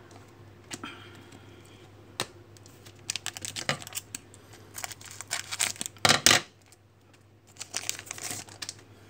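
Crinkling and tearing of a foil Panini Select Soccer trading-card pack as it is handled and torn open: a run of sharp crackles, loudest about six seconds in, with another burst near the end. A few light clicks of cards being handled come first.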